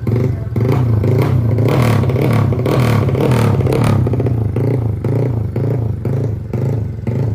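Engine of a modified Honda Nice 125 underbone motorcycle, built out to 250cc with a four-valve head, running loud with a steady pulsing beat. It is revved up for a few seconds starting about half a second in, then settles back to the pulsing run.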